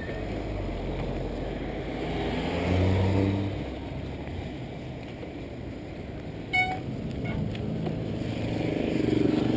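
A car's engine passing close by, swelling to its loudest about three seconds in over steady street noise. A brief sharp squeak comes about two-thirds of the way through.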